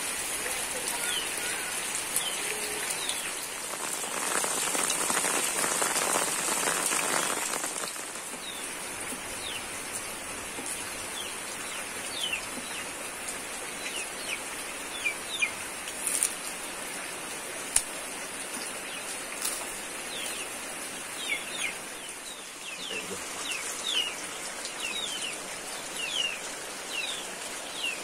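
Birds chirping: many short, high, falling chirps, growing thicker in the second half, over a steady rain-like hiss that swells for a few seconds about four seconds in. A few sharp clicks in the middle.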